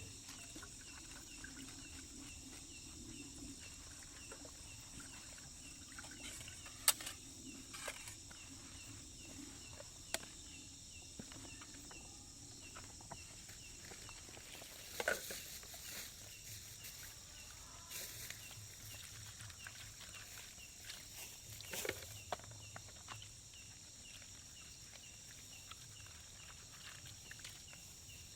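A steady high-pitched insect chorus with a fast, even chirping pulse beneath it. Scattered sharp clicks and knocks come through it, a handful in all, the loudest about 7 and 15 seconds in.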